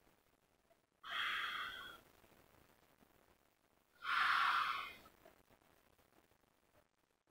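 A man breathing forcefully through one nostril, the other held closed with his fingers, in Anulom Vilom alternate-nostril pranayama. There are two breaths, each about a second long and about three seconds apart; the second is a little louder.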